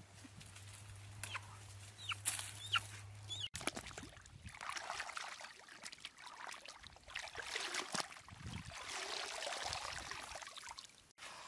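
White chickens lying on the forest floor give a few short, high clucking calls over a steady low hum. After a cut, water splashes and sloshes as a white chicken is dunked and swished in a river.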